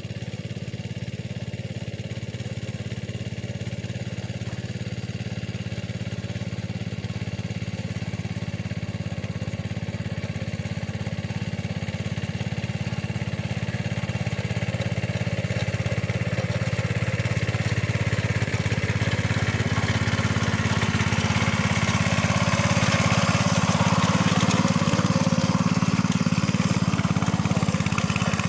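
Engine of a small Capung Metal two-wheel hand tractor running steadily while plowing a rice paddy, growing gradually louder.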